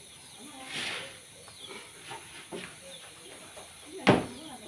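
Rural yard sounds: faint bird chirps and clucking fowl, a brief hiss about a second in, and a few light knocks. The loudest is a single sharp knock about four seconds in.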